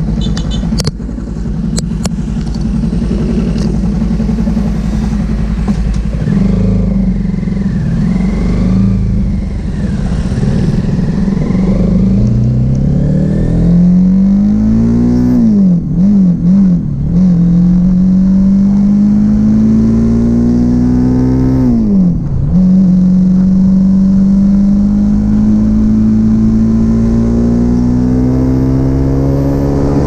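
Bajaj Pulsar NS200 single-cylinder engine with an exhaust that gives an inline-four-like sound. It runs with a rough clatter at first, then pulls through the gears. The engine note climbs steadily and drops sharply at each of three upshifts, with a few quick throttle blips after the first.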